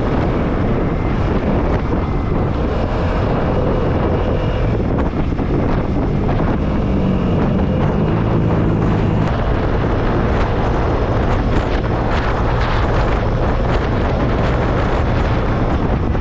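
Wind rushing over the action camera's microphone on a moving Vespa S125 scooter, with the scooter's single-cylinder engine running steadily underneath.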